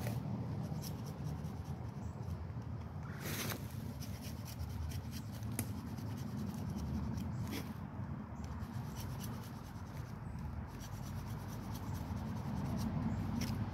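Knife blade scraping and sawing notches into pine bark: scattered short scratches and clicks over a steady low rumble, with a longer rasp about three seconds in.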